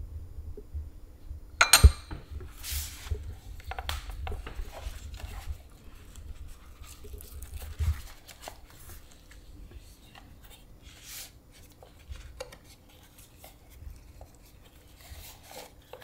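Tableware sounds at a meal: cutlery and dishes clinking. There is one loud, sharp clatter about two seconds in, then scattered lighter clicks and knocks.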